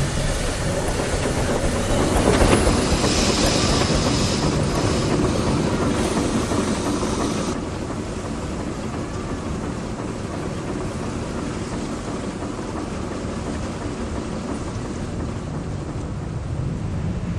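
Fishing boat at sea: steady rumble of the engine and deck hauler with water hiss. About halfway through, the hiss drops off suddenly and a quieter, duller rumble runs on.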